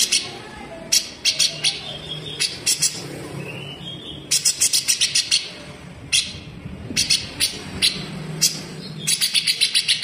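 Grey-cheeked bulbul (cucak jenggot) singing its fast, harsh, sharp 'besetan' song: bursts of rapid clipped notes, several quick strokes to a burst, with short pauses between, about eight bursts in all.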